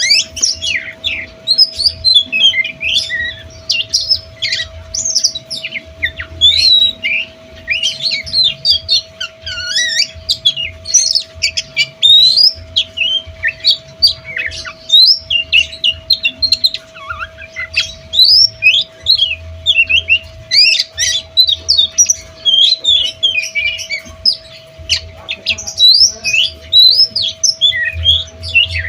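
Oriental magpie-robin singing nonstop, a fast, varied stream of whistles, chirps and harsh notes as it runs through its learned repertoire. A steady hum sits underneath.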